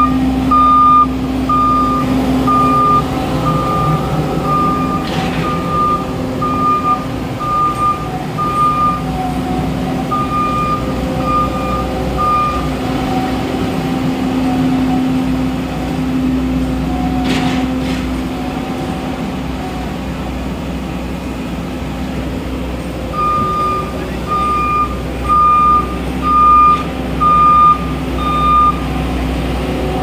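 Bobcat skid-steer loader's diesel engine running steadily, with its backup alarm beeping at a little over one beep a second through the first twelve seconds and again from about twenty-three seconds until shortly before the end.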